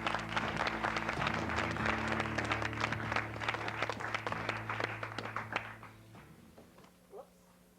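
Studio audience applauding over a band's held low chords, the clapping dying away about six seconds in.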